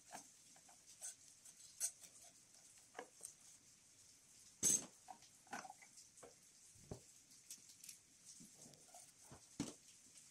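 Faint scattered clicks and light knocks of gloved hands handling metal engine parts while taking out the EGR pipe, with one sharper knock about halfway through.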